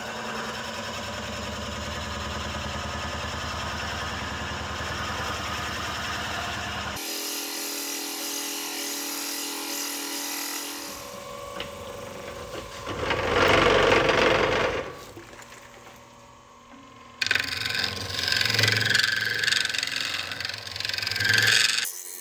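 Woodworking power tools running in a string of short takes: first a steady motor run with a low hum, then different tool noises, with the sound changing abruptly about 7, 11 and 17 seconds in.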